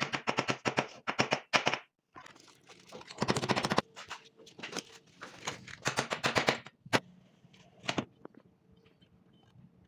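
Impact wrench on the wheel nuts of a concrete mixer's tyre, rattling in three bursts of rapid hammering, then a couple of single sharp knocks.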